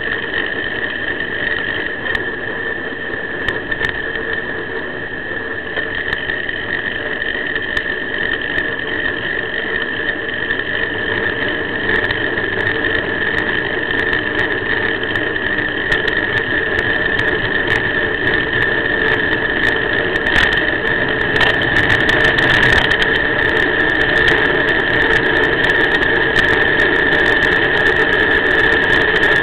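Steady high-pitched whine over rushing road and wind noise, with small rattles, recorded by a cheap action camera riding on a moving bike. The noise grows slowly louder through the ride.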